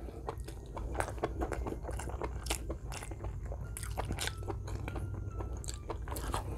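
A person chewing spoonfuls of rice, with many small, irregular wet mouth clicks and lip smacks picked up close to the microphone.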